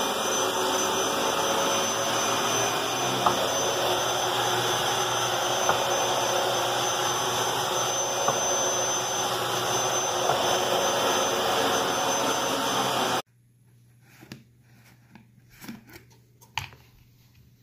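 Dyson upright vacuum cleaner running over carpet: a steady rush with a thin high whine and a few sharp ticks, which cuts off suddenly about thirteen seconds in. Then a few faint clicks of a plastic lid being handled on a plastic jar.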